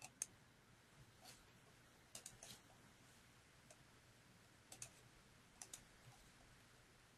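Faint computer mouse clicks, about a dozen scattered unevenly, several in quick pairs, over quiet room tone.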